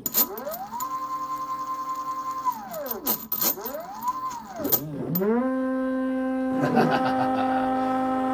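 Large custom-made stepper motors running a loaded G-code program from a GRBL controller: their singing whine sweeps up, holds a steady pitch and sweeps down again several times as the moves speed up and stop, with scattered clicks in the first five seconds. From about five and a half seconds the motors settle into a steady hum.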